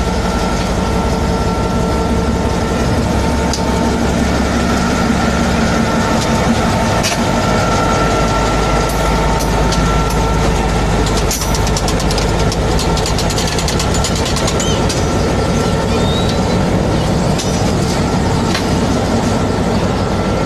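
Diesel-electric locomotive GMU-15 No. 4819 idling, its engine running steadily, heard close up alongside the locomotive.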